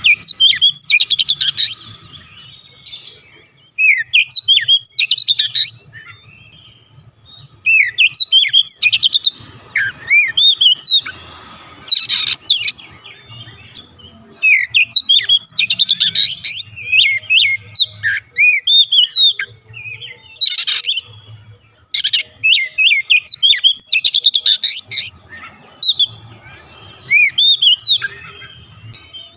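Oriental magpie-robin (kacer) singing in bursts of rapid, varied whistled notes and slurred sweeps, with short pauses between the phrases and a couple of harsh, scratchy notes mixed in.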